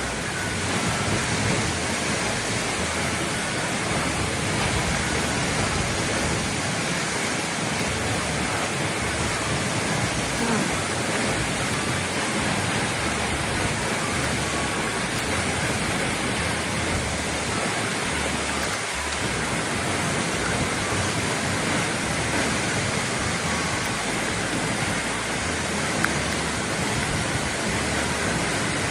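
Waterfall in heavy rainy-season flow: a steady, unbroken rush of falling water.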